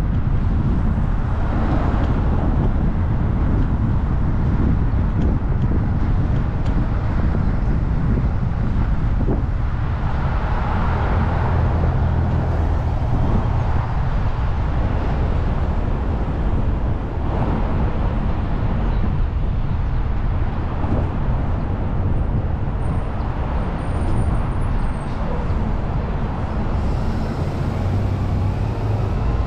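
Car driving through city traffic: a steady low rumble of engine and tyres on the road, with a few louder swells of passing traffic.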